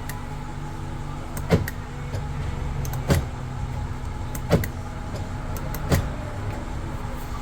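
Universal aftermarket door lock actuator clacking as the door lock is cycled, four sharp strokes about a second and a half apart, over a steady low hum.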